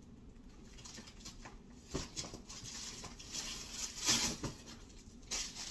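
Rustling and crinkling of clothing and plastic packaging being handled, starting about two seconds in with a few soft knocks; faint room tone before that.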